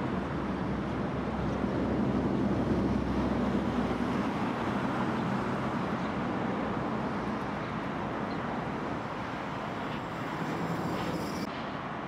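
Steady low rumble of distant road traffic, a little louder two to four seconds in.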